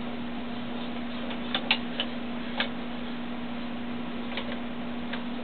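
Desktop robot arm (CrustCrawler Smart Arm) moving as it handles a flashlight: a handful of short sharp clicks and knocks, several close together around two seconds in and two more later, over a steady low hum.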